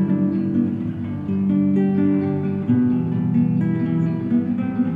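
Background music: an acoustic guitar playing held notes that change about once a second.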